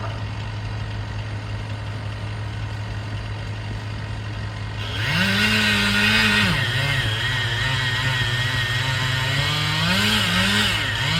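A diesel excavator engine runs steadily underneath. About five seconds in, a chainsaw revs up and cuts into the oak's back cut, its pitch dropping as it bogs under load, then climbing again near the end.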